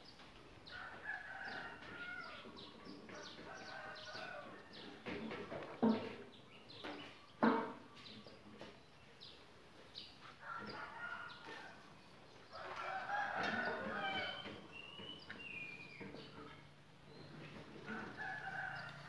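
Roosters crowing and chickens clucking, several calls spread through, the fullest about two-thirds of the way in. Two sharp knocks in the middle, about a second and a half apart, are the loudest sounds.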